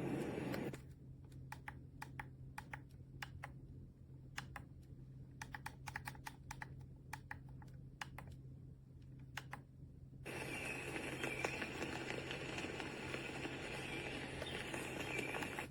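Scattered light clicks at irregular spacing for about nine seconds. Then a steady hiss starts suddenly, with a few clicks through it, and stops shortly before the end. A faint low hum runs underneath.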